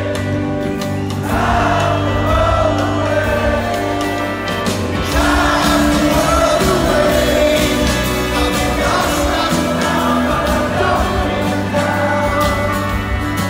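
Live band music with singing, steady throughout.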